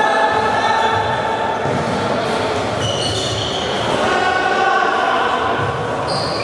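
Floorball fans chanting in unison in a sports hall, with long held sung notes over the general noise of the game.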